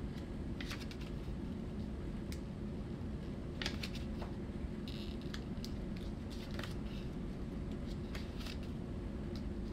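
Pages of a small paperback booklet being leafed through: short papery flicks and rustles at irregular moments, a longer rustle about five seconds in, over a steady low room hum.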